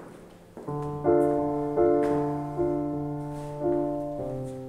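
Background music: sustained piano chords come in just under a second in, with notes re-struck about once a second and a change of chord near the end.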